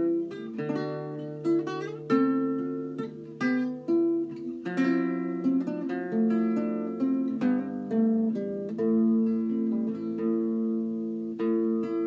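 Solo nylon-string classical guitar playing an improvised, traditional-sounding folk tune: plucked notes and chords struck one after another and left to ring.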